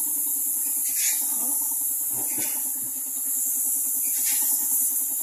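Paint spray gun hissing steadily as a car body is spray-painted, over a steady low hum.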